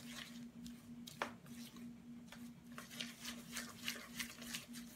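Silicone spatula scraping and mashing creamed butter and sugar against the sides of a glass mixing bowl: a run of soft, irregular scrapes and taps, with one sharper tap about a second in. A faint steady hum runs underneath.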